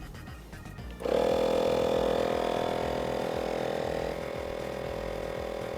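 Portable car-powered tyre inflator's electric air compressor switching on about a second in and running steadily, pumping air into a car tyre through the valve.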